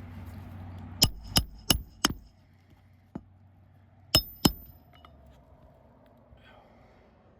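Hammer driving roofing nails into asphalt shingles: four quick sharp metallic strikes about a third of a second apart, then a light tap, then two more strikes, each with a short ringing clink.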